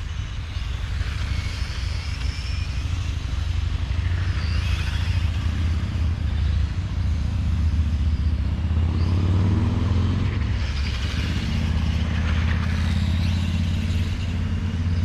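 Electric 1/10 Tamiya M-chassis RC cars racing, their motors and gears whining and rising and falling in pitch as they speed up and slow down, over a steady low rumble.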